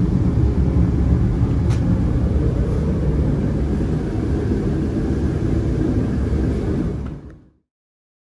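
A steady low rumble that fades out about seven seconds in and gives way to silence.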